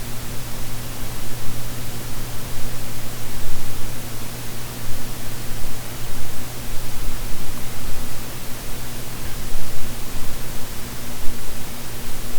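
Steady hiss of a room with a ceiling fan running, picked up by a shotgun microphone with no noise suppression, with a constant low hum beneath it.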